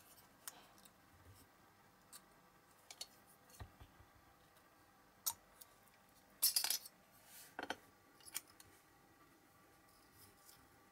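Small screwdriver prying and scraping plastic parts out of a diecast metal Matchbox model car body: scattered light clicks and scrapes, with the loudest scraping a little past six seconds in and a shorter one about a second later.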